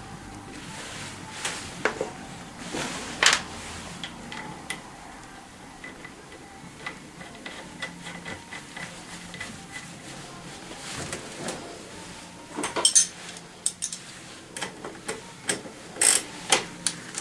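Metal clinks and taps of a wrench and axle nut being fitted on a scooter's front axle bolt: scattered sharp clicks, a run of light quick ticks in the middle, and a cluster of louder clicks near the end.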